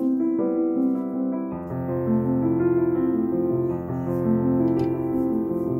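Background piano music: a steady melody of piano notes, with lower bass notes coming in about a second and a half in.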